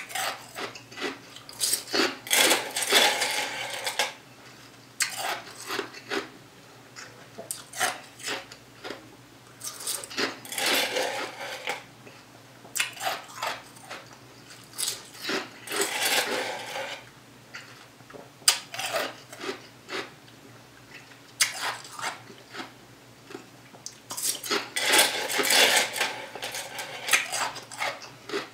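Close-up crunching of ice being chewed, in repeated bursts of a second or two, with clicks and scrapes of a plastic spoon against the cup between bites.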